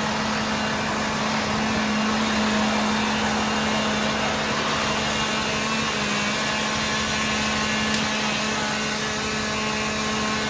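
Fire engine's motor running steadily at idle: a constant, unchanging hum.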